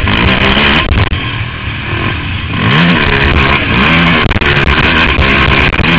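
Can-Am DS450 quad's single-cylinder four-stroke engine revving up and down, easing off about two seconds in, then rising and falling several times in quick succession. Sharp clicks and knocks are scattered through it.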